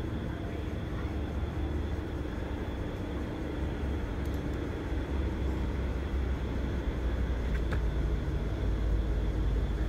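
Steady low rumble of background noise, growing slowly louder toward the end, with a faint steady high-pitched tone and a few faint ticks.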